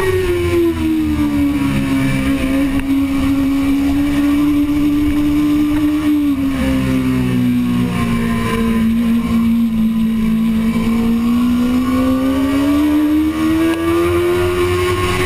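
2005 Suzuki GSX-R600 inline-four engine held at high revs under race load, heard from on board. Its pitch drops a little in the first second, sags slowly to its lowest about two-thirds of the way through, then climbs again near the end as the throttle opens.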